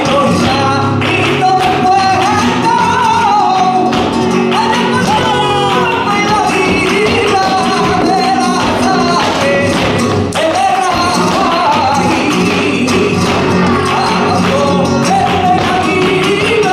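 Live flamenco alegrías: a male singer's wavering cante over flamenco guitar, with steady palmas handclaps and the dancer's sharp heel-and-toe footwork strikes.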